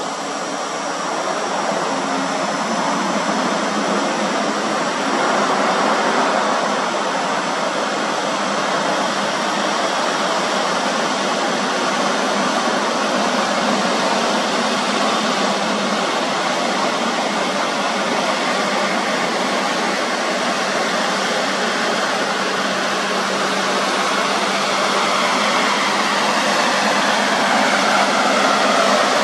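MAN TGS heavy tractor unit hauling a loaded lowboy trailer close by: a steady, loud wash of engine and tyre noise that grows louder over the first few seconds and then holds.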